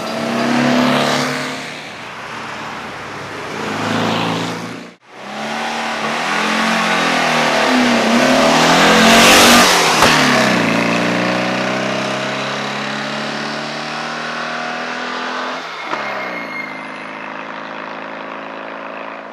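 Air-cooled flat-four engine of a VW Beetle Cabriolet running under load as the car drives past, loudest about halfway through, with the pitch dropping as it goes by and then fading as it drives away. The sound cuts out briefly about five seconds in.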